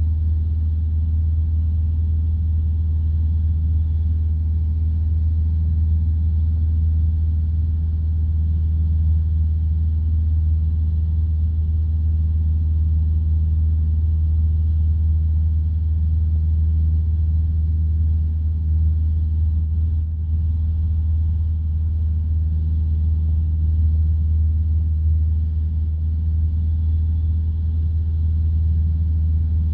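Single-engine piston light aircraft's engine droning steadily in flight, with a deep, even rumble throughout.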